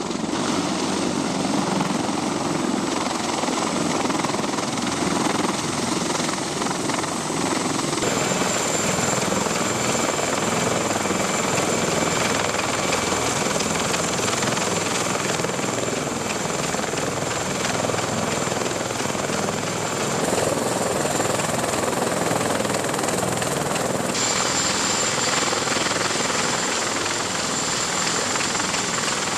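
CH-53 heavy transport helicopter running: steady rotor and turbine noise with a thin, high turbine whine in parts. The sound changes abruptly a few times.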